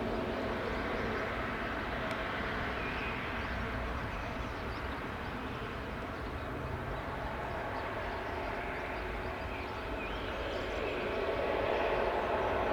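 Airbus A320neo's Pratt & Whitney PW1127G geared turbofan engines running with a steady jet noise and a faint hum, growing louder near the end.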